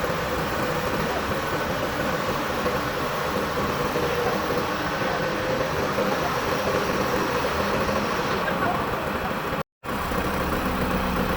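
Airstone AS-350HB 250 kW screw air compressor running steadily: a dense machine noise with a steady whine. The sound drops out for an instant near the end.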